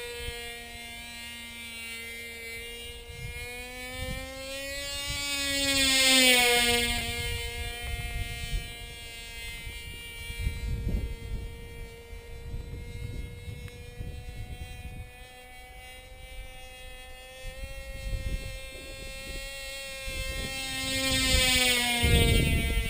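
Small Cox two-stroke glow engine on a homemade flying-wing model buzzing at high revs in flight. Its pitch rises and then drops as it passes close, about six seconds in and again near the end. Wind buffets the microphone at times.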